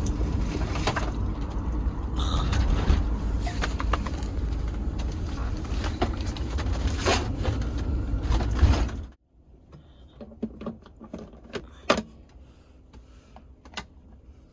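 Road noise inside a moving converted Ram ProMaster van: a steady low rumble with loose items rattling and knocking. About nine seconds in it cuts off abruptly to a quiet stretch with a few small clicks and knocks.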